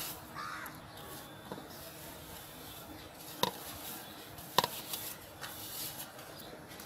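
Two sharp metallic clinks, about a second apart, from a steel plate knocking on a metal cooking pan as semolina is tipped in, over a faint steady hiss.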